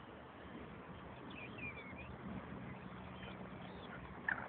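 Quiet outdoor ambience with faint bird chirps, and one brief high call about four seconds in.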